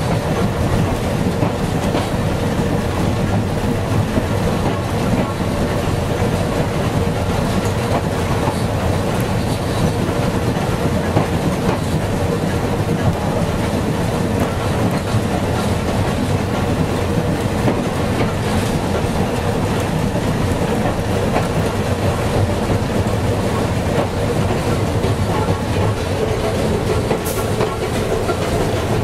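Narrow-gauge railway carriage running along the track, heard from inside: steady running noise with a continuous hum.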